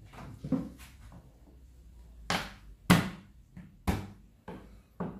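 Knife and hands knocking on a wooden cutting board while working garlic cloves: a few scattered sharp thumps, the three loudest in the second half, about a second apart.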